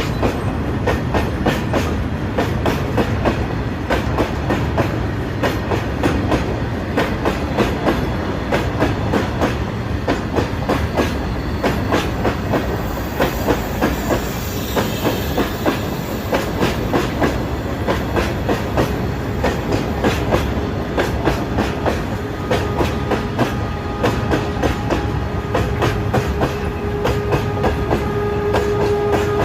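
Indian Railways train running at speed, its wheels clicking rapidly and evenly over the rail joints over a steady rumble. A steady pitched tone comes in faintly in the last several seconds and grows louder.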